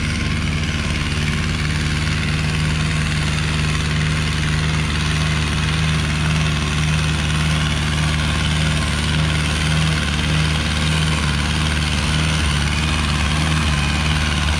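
Farmtrac 6055 diesel tractor engine running steadily under heavy load while pulling two harrows through the soil, with a deep, even drone.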